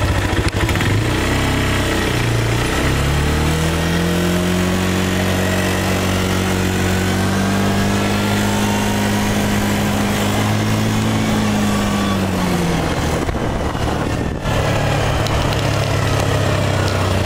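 ATV engine running at low revs, then revving up about three seconds in as the quad pulls away and holding steady revs while it rides along. About twelve seconds in the revs drop back to a lower, idle-like pitch.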